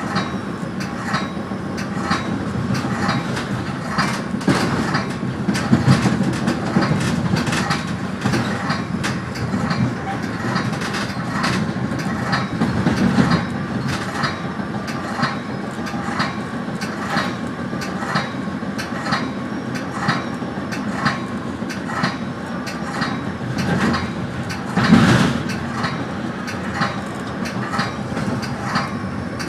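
Metra commuter train heard from inside its cab car, rolling with a steady rumble while the wheels click repeatedly over rail joints and yard switches. A louder clatter comes about 25 seconds in.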